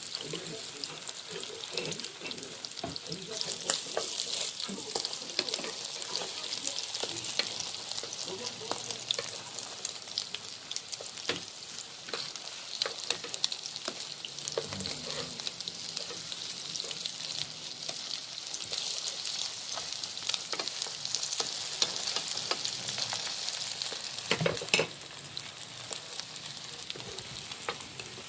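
Battered Korean jeon frying in oil in a pan: a steady high sizzle with constant crackling and spitting, and one louder crack near the end.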